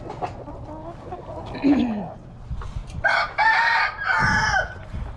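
A rooster crows once, a loud call of under two seconds about three seconds in, its last note falling in pitch. Quieter chicken calls come before it.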